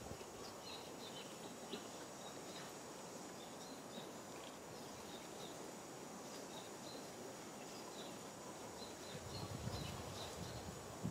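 Faint outdoor ambience with short, high chirps repeating throughout, and a low rumble near the end.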